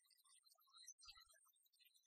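Near silence, with a few faint low thumps about a second in.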